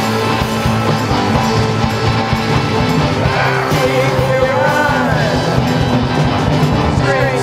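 Punk rock song with drums, bass and guitar playing steadily; a singing voice comes in about three seconds in.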